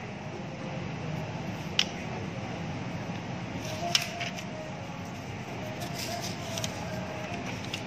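Steady background noise in a busy indoor office, with a few sharp clicks and taps; the loudest click comes about four seconds in.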